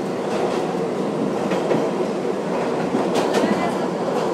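R62A subway car running through a tunnel, heard from inside the car: a steady rumble with the wheels clicking over rail joints, most clearly in a cluster of clicks about three seconds in.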